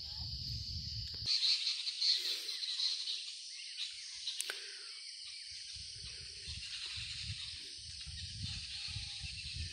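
Steady high-pitched chorus of insects, with a faint low rumble that comes and goes and a single click about halfway through.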